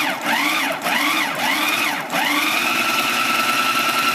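Hamilton Beach food processor motor whining through a string of quick pulses, its pitch rising and falling with each, then held on steadily for about two seconds before stopping near the end. The blade is churning a thick corned beef and cream cheese mixture.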